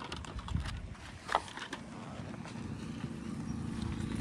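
Roadside traffic: a few scattered clicks and knocks, then a motor vehicle's engine approaching and growing steadily louder.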